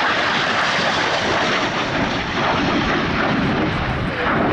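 Loud, steady rushing jet-engine noise from a fighter jet in flight, without distinct tones, easing slightly in its upper hiss toward the end.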